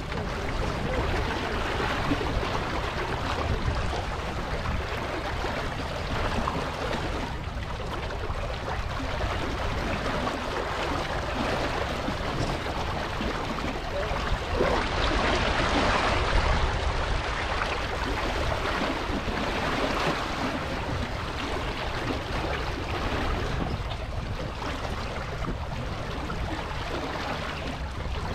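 Water rushing along a sailboat's hull while it runs downwind, with wind buffeting the microphone as a low rumble. The rush swells for a couple of seconds about halfway through.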